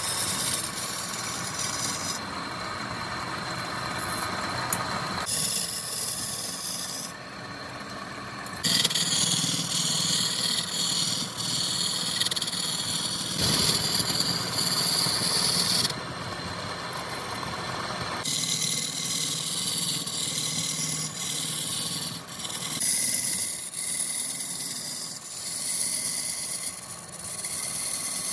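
Power woodworking machinery cutting and shaping wood, with a rasping, rubbing sound that changes abruptly several times as it moves between separate clips.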